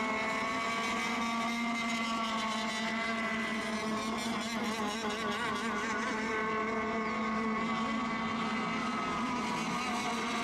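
Several radio-controlled racing boats running on the water at once: a steady, overlapping buzz of motors whose pitches waver slightly as they circle.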